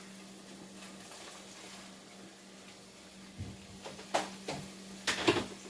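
Kitchenware being handled on the stovetop: a faint steady hiss, then a handful of clinks and knocks of pots and utensils in the second half, the loudest near the end.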